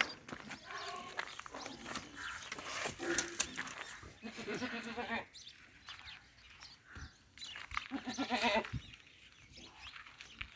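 Gulabi goats bleating: two quavering bleats, one about four seconds in and one about eight seconds in. Scattered clicks and rustling come before them.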